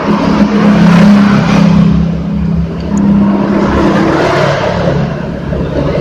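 A motor vehicle engine running, a steady low hum that shifts slightly in pitch, loudest about a second in.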